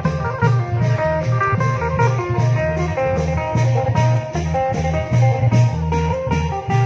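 Thai klong yao long-drum band music: long drums beating a steady rhythm with regular cymbal strokes, under a plucked string melody.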